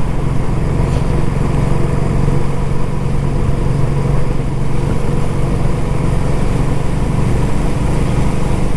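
Royal Enfield Classic 350's single-cylinder engine running steadily under way at an even speed, with no revving.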